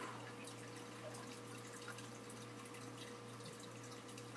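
Quiet room tone: a steady low electrical hum with faint, scattered light ticks.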